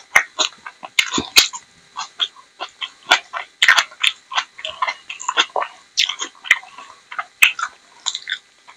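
Close-miked eating sounds: wet chewing and lip smacks, with the squelch of fingers mixing rice and kidney-bean curry on a steel plate. It comes as a rapid, irregular run of sharp clicks and smacks.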